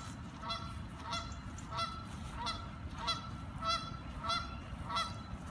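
Canada geese honking, a steady run of short calls repeating about every half second to second, over a low steady rumble.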